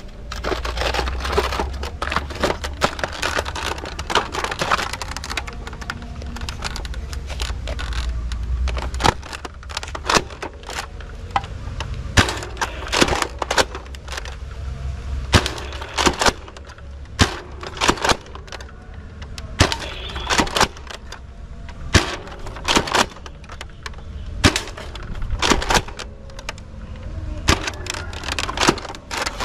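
Sharp plastic clicks and snaps from a toy sniper rifle being handled and worked, coming irregularly about once or twice a second, over a low rumble during the first third.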